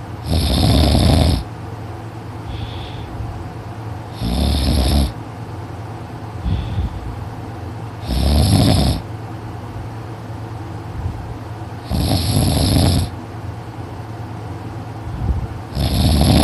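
A teenage boy snoring heavily in his sleep, really loud: five snores about every four seconds, each lasting about a second.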